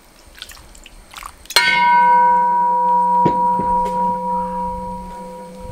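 A large brass cooking vessel struck once, ringing like a bell with a long, slowly fading tone; two light knocks follow about two seconds later.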